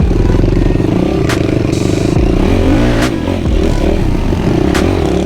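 ATV engine running under throttle as the quad is ridden through rough woods, with a few sharp knocks from the machine going over bumps.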